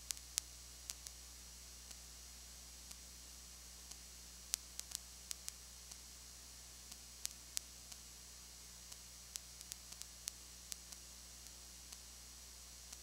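Steady low electrical hum and hiss with scattered sharp clicks and crackles, sometimes several in quick succession. No crowd or game sound comes through.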